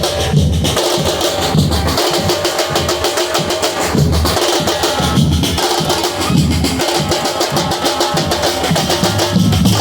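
A drum ensemble playing a continuous rhythm of dense, evenly repeating strokes, with deep bass drum hits under sharper drum strokes.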